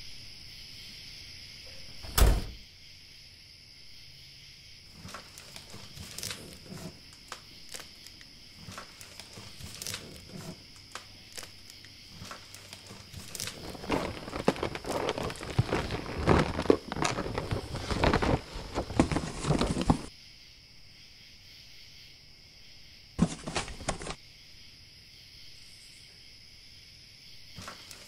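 A single heavy thud about two seconds in, then a small paper box being handled and opened: rustling and crinkling that grow busy in the middle and stop abruptly, with a short burst of it a few seconds later. Under it runs a steady high chirring like night insects.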